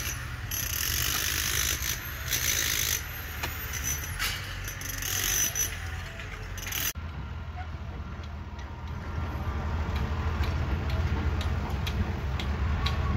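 Construction machinery: for the first seven seconds, bursts of high-pitched metallic squealing over a low engine rumble; after a cut, the steady low rumble of a tracked excavator's diesel engine running, with faint clicks.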